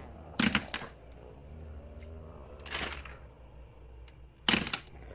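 Haunted-house sound-effects ambience: two quick clusters of sharp cracks or knocks, with a short hiss between them, over a steady low drone.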